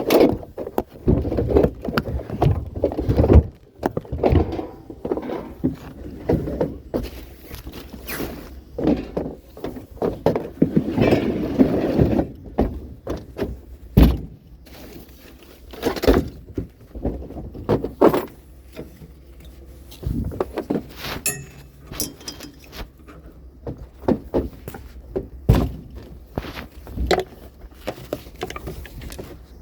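Irregular thuds, knocks and clattering of hard objects being handled, with a sharp knock about halfway through and a denser rattle shortly before it.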